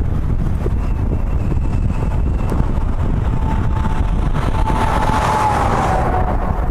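Wind buffeting a microphone on the roof of a moving car, over steady road noise. About four and a half seconds in, a passing semi-truck adds a swell of rushing noise, and a faint steady tone drops slightly in pitch as it goes by.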